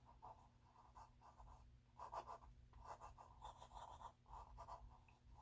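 Faint, irregular scratching on hard plastic as a small hole is drilled by hand into a plastic model kit part, with no motor sound.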